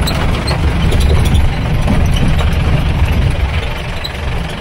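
Off-road jeep's engine idling, a steady low-pitched running sound that eases slightly near the end.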